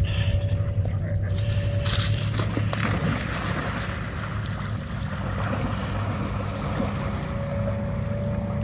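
A dog charging into lake water with a burst of splashing a couple of seconds in, then swimming with softer sloshing, over a steady low rumble.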